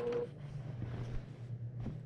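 Brother PQ1500SL sewing machine's motor whine dying away just after the stitching stops. It is followed by a low steady hum, faint rustling of the quilt under the hands and a faint click near the end.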